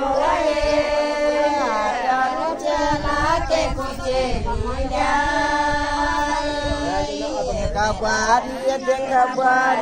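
A group of older women singing a traditional Pahari wedding song (mangal) together in unison, in long held phrases.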